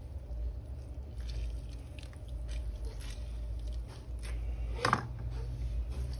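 Hands squeezing orange halves into a bowl: faint wet squishing and crunching with small clicks, over a steady low hum. About five seconds in, a small child gives a short fussy cry.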